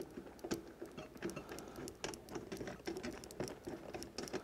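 Small metal thumb screw being turned in by hand into a metal softbox speed ring, giving faint, irregular little clicks and scratches of metal on metal.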